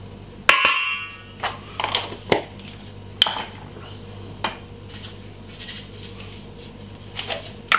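A metal spoon clinks against a stainless steel mixing bowl with a short ringing tone about half a second in, followed by a series of lighter taps and clicks while seasoning is shaken over the chicken.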